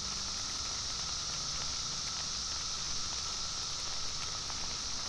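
Cicadas droning steadily with a high-pitched buzz.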